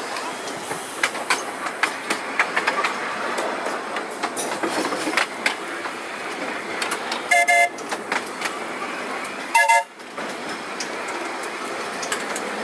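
Electric narrow-gauge tram running along the rails, with steady running noise and frequent clicks from the wheels on the track. Two short horn toots about two seconds apart sound as an oncoming tram approaches at the passing loop.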